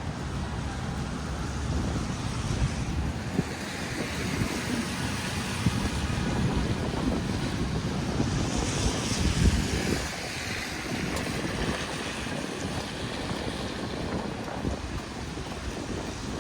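City street in a snowstorm: a steady low rumble of wind on the microphone and traffic, with a hiss that swells for several seconds in the middle and fades, like a vehicle passing on a snowy, slushy street.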